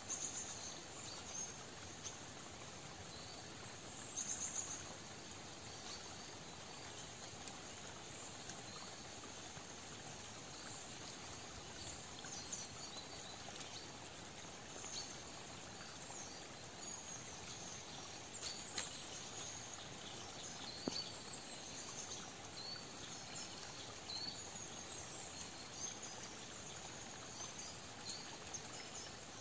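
Forest ambience: a steady soft hiss with short, high chirps scattered all through, and an occasional faint tick.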